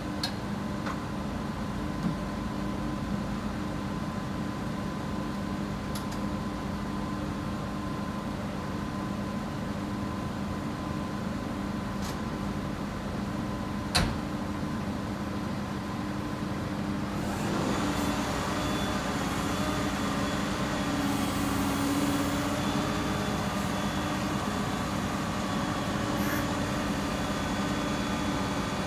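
Cat wheeled excavator's diesel engine idling steadily, with a sharp knock about halfway through. Some 17 seconds in, the sound grows louder and fuller as the hydraulics start working and the boom and arm swing.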